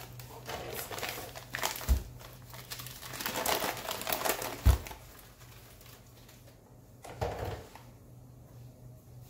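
Sugar bags rustling and crinkling as they are opened and handled, with scattered clicks and two sharp knocks on the counter about two and nearly five seconds in. It gets quieter after about five seconds, with one more soft knock near the end.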